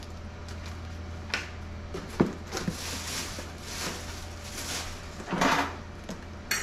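Plastic wrapping and cardboard rustling as hands dig through a packed cardboard box, with a few sharp knocks, the loudest about two seconds in, over a steady low hum.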